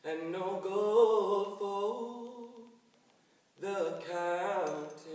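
A man singing unaccompanied in the sean-nós style: two long sung phrases with a short pause between them, the second with a quick wavering ornament.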